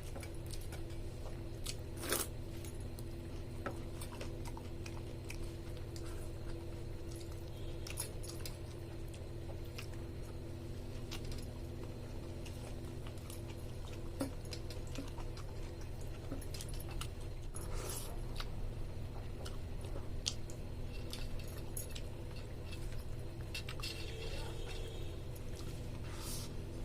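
A person eating rice with roasted okra and mixed vegetable curry: chewing and squishing, with scattered sharp clinks and clicks, the loudest about two seconds in and again near eighteen seconds. A steady low hum runs underneath.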